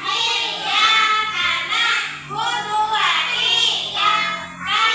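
Young children singing, their voices rising and falling with a few longer held notes.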